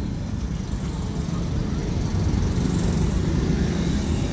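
Steady low rumble of outdoor background noise, with no distinct single event standing out.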